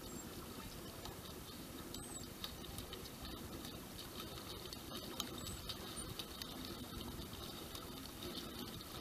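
Water lapping and trickling against a kayak's hull, with scattered small drips and ticks.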